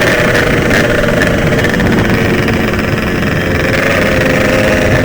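Yamaha RX-King single-cylinder two-stroke motorcycle engine running at a steady pitch under way, with wind rush over it.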